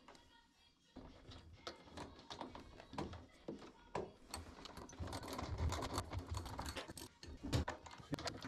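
Irregular clicks, taps and rustling of washer parts being handled and fitted during reassembly, sparse at first and busier from about four seconds in.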